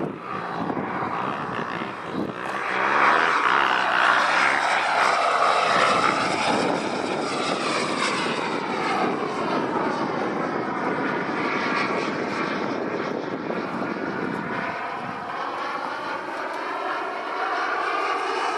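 Jetcat 160 model gas-turbine engine of a radio-controlled Hawk jet in flight: a steady jet whine with rushing noise. It grows louder about two and a half seconds in, and its tone shifts slowly as the model passes.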